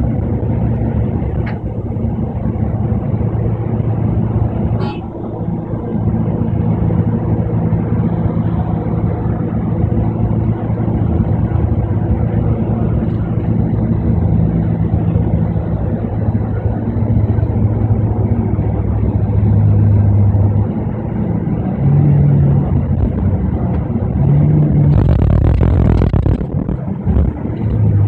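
Double-decker bus engine and road noise while driving at highway speed, heard inside the upper deck. The engine note steps up and down in pitch a few times in the second half, and a louder rush of noise comes about twenty-five seconds in.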